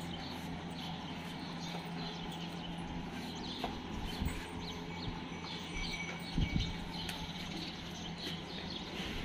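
Small birds chirping over and over, high and short, over a steady low hum, with a couple of low thumps about six and a half seconds in.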